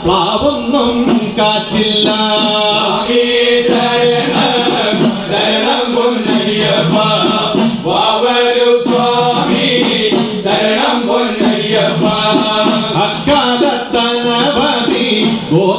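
A group of men chanting a Malayalam Sasthampattu devotional song together, with the steady rhythmic beat of small hand-held udukku hourglass drums.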